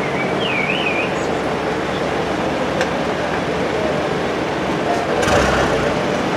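Steady rumble of traffic and engines at a closed railway level crossing, with a short warbling whistle about half a second in. A louder swell of vehicle noise starts about five seconds in.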